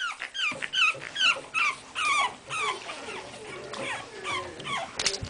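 A dog whining: a steady run of short, high whines, two or three a second.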